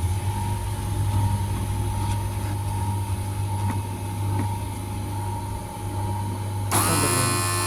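Electric lens grooving machine running with a steady hum. About seven seconds in, its sound changes abruptly to a brighter, higher-pitched whine made up of many steady tones, as the grooving wheel's motor starts up.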